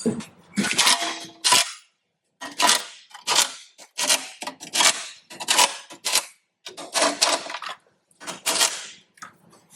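Hand ratchet wrench worked in repeated strokes, each back-swing a short burst of clicking, about a dozen strokes with two brief pauses, as bolts are run in during a starter installation.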